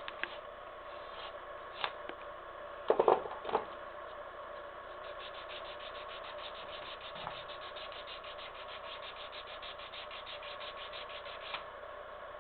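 Knife blade scraping a cane (Arundo donax) reed blade for a double reed, in quick light strokes about seven a second through the middle stretch. A couple of short, louder knocks come about three seconds in.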